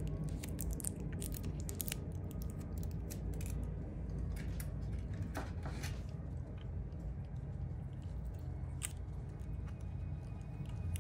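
Fingers handling the DJI Mini 3 Pro's plastic gimbal guard and the protective film on its gimbal camera: a run of small plastic clicks and crackles, dense for the first few seconds and sparser after, over a low steady hum.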